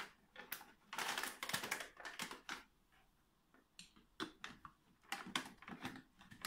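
A tissue-paper lantern on a thin rattan frame being handled and fitted onto a lamp socket: quiet, irregular paper rustling with small clicks, in two spells with a short pause about halfway.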